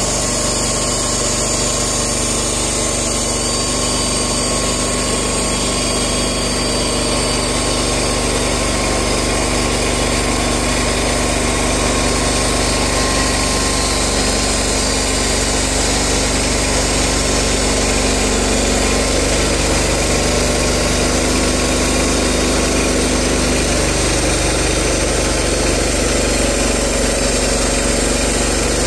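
Portable band sawmill's engine running steadily under load while the band blade cuts lengthwise through a tulip poplar log, the sawhead travelling along the cut.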